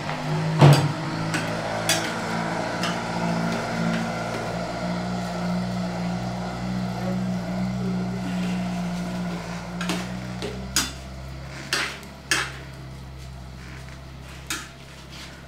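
A metal spoon and cookware clinking and scraping against a pot on a wood-fired stove: a handful of sharp clinks spread through, the loudest about a second in, over a steady low hum.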